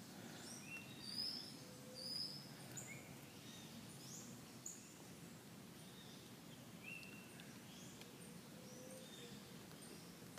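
Wild birds calling: many short chirps and whistles from several birds, the two loudest notes about one and two seconds in, over a faint low background rumble.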